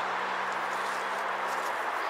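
Steady outdoor rushing noise with a low, even hum underneath and a few faint ticks.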